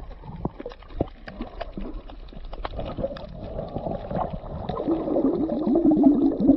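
Underwater sound heard through a camera in the water: scattered sharp clicks and crackles with bubbling, gurgling water. The gurgling grows louder in the second half.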